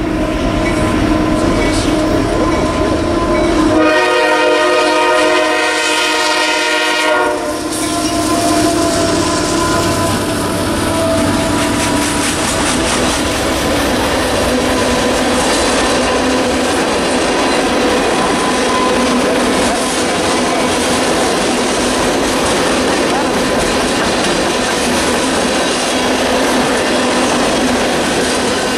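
CSX freight train passing: the locomotive horn sounds a chord that stops about seven seconds in, then a long string of tank cars rolls by with a steady rumble of wheels on the rails.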